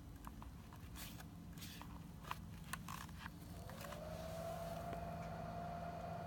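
Handling clicks and scrapes as the e-bike battery charger is plugged in, then the 48 V charger's cooling fan starts up about three and a half seconds in, its whine rising in pitch and then holding steady, pretty quiet. A low steady hum runs underneath from early on.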